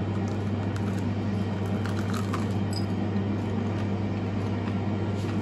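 Steady low electrical hum, as from a running appliance, with a few faint clicks and taps.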